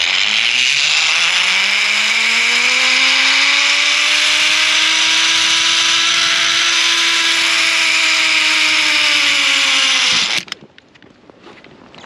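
Zip-line trolley's pulley wheels running along a steel cable during a descent. The whine rises in pitch as the rider picks up speed, levels off, dips slightly near the end and cuts off suddenly about ten seconds in, over a loud rushing hiss.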